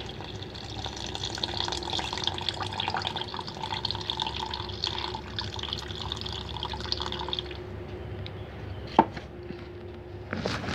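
Water poured in a thin stream from a cup into a bread maker's pan, a steady trickle that stops about three-quarters of the way through. A single sharp click follows near the end.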